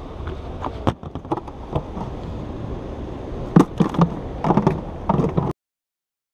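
Handling noise: a run of sharp knocks and clunks over a low steady rumble, the loudest cluster about three and a half to five seconds in. The sound cuts off abruptly about five and a half seconds in.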